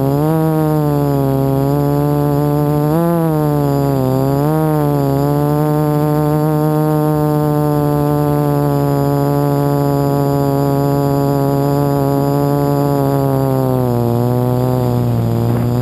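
HoverThings Flip FPV quadcopter's motors and propellers whining, recorded by its onboard camera. The pitch dips and rises several times in the first few seconds as the throttle changes, holds steady through the middle, then dips again near the end.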